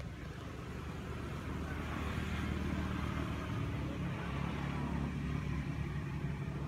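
A vehicle engine running, a low steady hum that grows louder about two seconds in.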